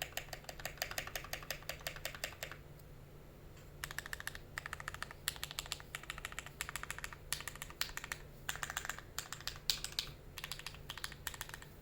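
Fast typing on a Tofu65 mechanical keyboard with lubed Tealios V2 linear switches on a brass plate with foam: rapid, even keystroke clacks. They stop for about a second and a half after the first two and a half seconds, then resume in quick bursts with short breaks.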